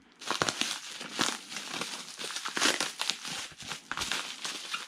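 Packaging crinkling and rustling with a dense run of sharp crackles as it is cut open with scissors.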